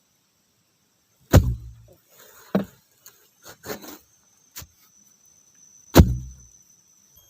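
Two heavy blows struck on wood, about a second and a half in and again about six seconds in, each with a deep thud, and a few lighter knocks between them. Insects drone faintly and steadily in the background.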